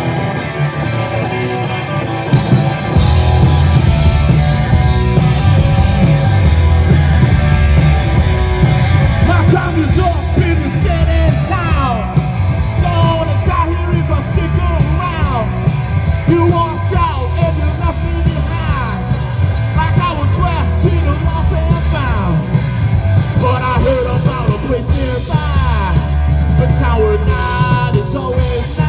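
Live heavy metal band playing loud, with electric guitar, bass and drums. The full band kicks in about two seconds in, and yelled vocals run over it.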